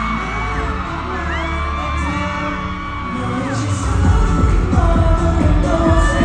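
Pop song with singing. About four seconds in, a heavy drum beat and bass come in under the vocals.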